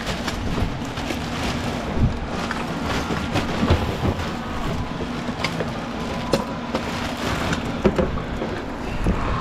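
A machine running steadily, with frequent sharp clanks and knocks over a continuous rumble.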